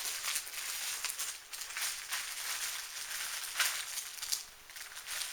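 Plastic packaging crinkling and rustling as kit parts are handled, in a continuous run of small crackles that starts suddenly and peaks about three and a half seconds in.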